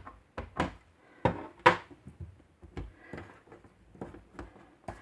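Irregular dull taps and knocks of an ink pad being dabbed onto a photopolymer stamp held in a stamping platform, about ten in all, the loudest about a second and a half in.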